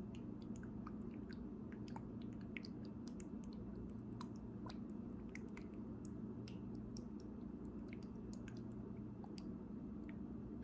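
Faint wet, sticky squishes and scattered small clicks from oil-slicked hands and a small frankincense essential-oil bottle being handled and dripped, over a steady low hum.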